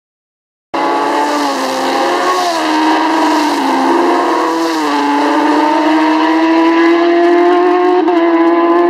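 Racing motorcycle engine at high revs, cutting in suddenly about a second in. Its pitch drops briefly twice as it shifts up a gear, then climbs slowly and steadily as the bike accelerates.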